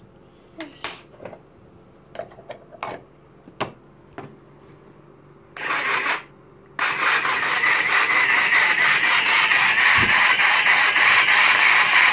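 Plastic clicks and taps as a Barbie toy food processor is handled. After a brief burst of its small electric motor just before six seconds, the motor starts again about seven seconds in and runs steadily with a high whir and a fast plastic rattle.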